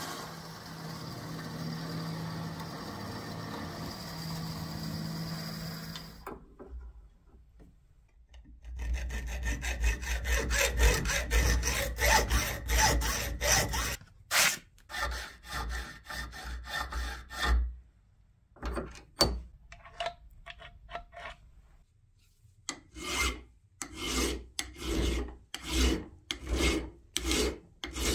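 Metal lathe running as a twist drill bores into the spinning steel stock, stopping about six seconds in. After a pause comes hand filing of metal: a run of fast rasping strokes, a few scattered strokes and clicks, then even back-and-forth file strokes, about three every two seconds, on a steel rod clamped in a bench vise.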